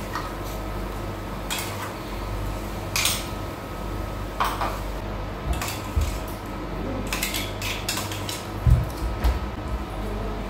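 Kitchen utensils clinking: a spoon scraping and tapping a steel cup as its contents go into a frying pan, then a spatula stirring in the pan. About ten scattered clinks and taps, the strongest near the end, over a steady low hum.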